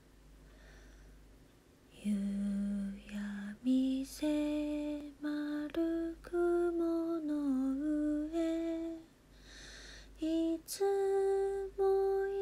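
A woman singing a slow Japanese song alone, with no accompaniment. She starts about two seconds in and sings long, held notes with a short breath pause near the end.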